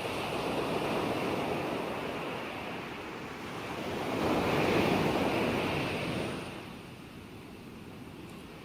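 Ocean surf: waves breaking and washing in, swelling to a peak at mid-point and ebbing to a lull near the end.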